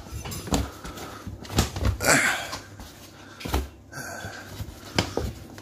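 Shoes and slippers being pulled off and set down on a doormat and wooden floor: a few soft thumps and scuffs, with heavy breathing from the person bending over about two seconds in.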